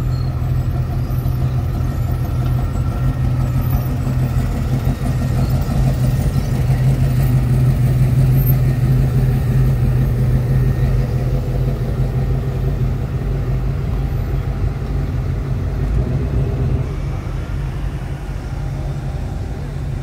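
Engines of classic and muscle cars running at low speed as the cars roll past one after another: a steady, deep engine sound. It grows louder about midway as a yellow Dodge Challenger passes close, then eases off.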